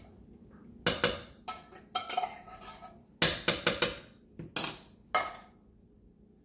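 A metal spoon clinking and knocking against a large aluminium stockpot in a string of sharp knocks. There is a quick run of about five knocks a little past the middle, and the last knock comes near the end.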